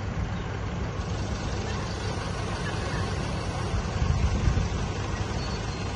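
Steady low rumble of vehicle traffic, swelling briefly about four seconds in.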